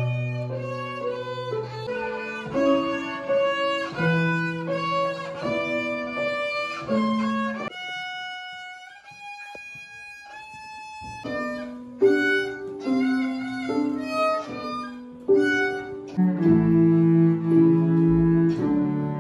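Students playing short bowed string pieces, mostly violin melodies with lower notes beneath, the notes changing about twice a second. Near the end, a cello playing low sustained notes takes over.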